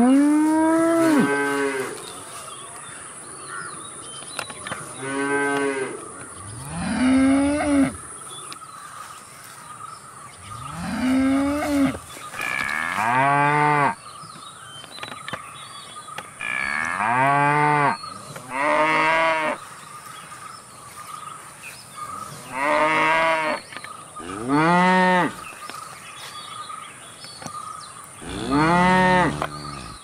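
Cows mooing: about ten separate moos of one to two seconds each, a few seconds apart, some rising and then falling in pitch.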